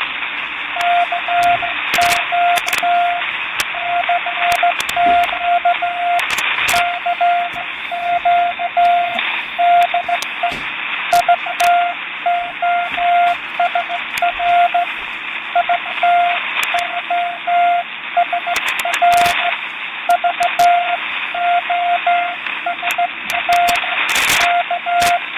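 Morse code sent as a single-pitch beep keyed in dots and dashes, starting about a second in: a recorded Morse code intro heard over shortwave radio reception. Steady static hiss and sharp static crackles run under it.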